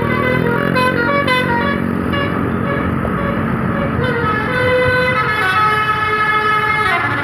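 Bus basuri (telolet) musical horn playing a melody over a running engine: a quick run of short notes in the first second and a half, then longer held notes whose pitch sags just before the end.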